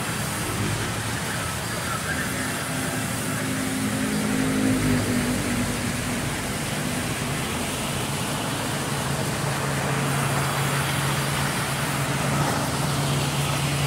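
Vertical band sawmill running steadily as its blade saws slabs off logs: a continuous machine hum over the noise of the cut, the hum's pitch shifting lower about halfway through.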